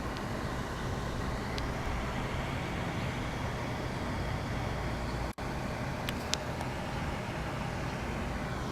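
Steady motor-vehicle noise, a low rumble with a constant hum, with a brief dropout about five seconds in and a few faint clicks shortly after.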